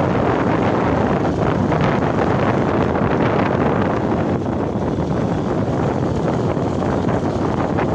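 Loud, steady wind noise buffeting the microphone as it moves forward along the road, a dense low rumble that covers everything else.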